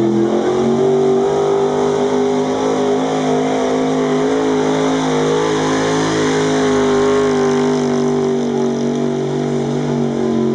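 Pickup truck engine running hard under load as it drags a weight-transfer pulling sled. Its note climbs briefly at the start, then holds nearly steady at a high pitch.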